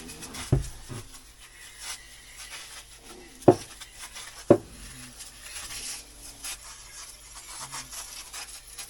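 Rubbing and scraping handling noise, with three sharp knocks: one about half a second in and two about a second apart in the middle.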